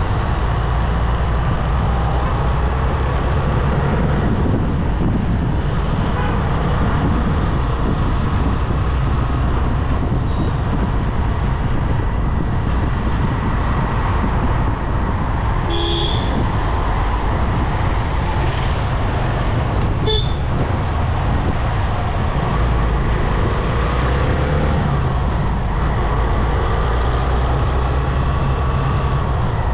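Steady rumble and road noise of a vehicle driving through traffic, with two brief horn toots a few seconds apart past the middle.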